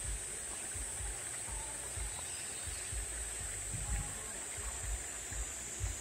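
Steady high-pitched insect drone, with wind buffeting the microphone in irregular low rumbles.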